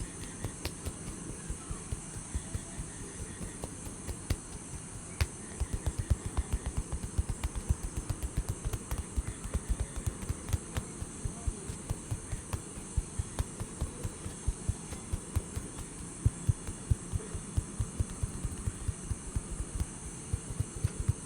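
Rapid hand taps and slaps of a percussive massage, a few a second, growing louder about five seconds in, over a steady high hiss in the background.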